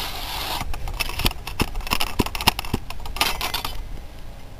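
Wooden ramrod working in the barrel of a muzzle-loading double-barrelled shotgun as a black-powder charge is rammed home: a scrape, a run of sharp taps about a second in, then another scrape just after three seconds as the rod is drawn out.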